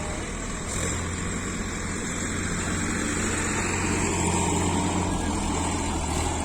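Heavy machine's diesel engine running steadily, with a deep low hum.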